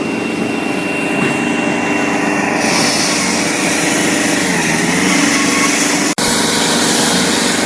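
Construction machinery engine running steadily on an asphalt demolition job. A higher hiss joins about three seconds in and the engine pitch dips briefly a little later; the sound breaks off for an instant about six seconds in.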